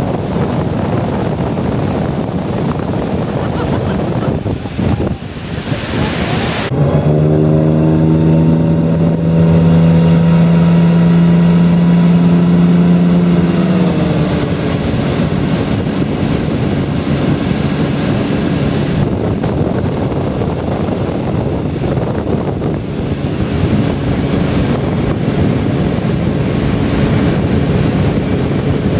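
Tow boat engine running at speed over rushing wake water, with wind buffeting the microphone. About seven seconds in, a steady engine hum comes up loud and holds, then dips slightly in pitch around fourteen seconds and carries on more quietly.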